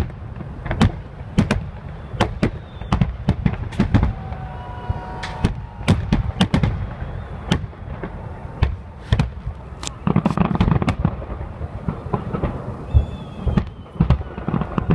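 Fireworks salute: shells bursting in a fast, irregular string of sharp bangs, dozens of them, over a constant low background noise.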